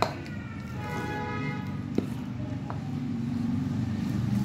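Spoon beating thick cake batter in a steel bowl, with sharp clinks of the spoon against the bowl at the start and about two seconds in. A brief horn-like pitched tone sounds in the background about a second in, over a low steady hum.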